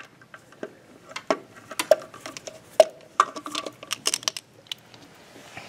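Hands handling parts among the spark plug wires under the hood: a run of irregular small clicks and taps, a few with a short ring.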